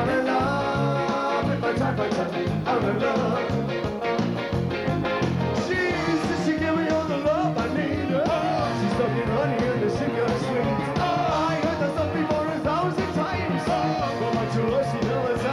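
Live rock band playing an upbeat ska-tinged song with a steady beat, with a bending lead melody over it from about six seconds in.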